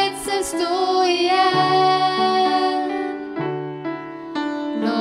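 A woman singing a slow song in Norwegian with upright piano accompaniment. Her voice drops out about three seconds in, leaving a short piano passage, and comes back in near the end.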